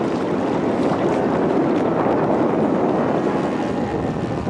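Radio-controlled Canadair CL-415 model plane flying overhead, its twin propellers giving a steady drone, mixed with wind noise on the microphone.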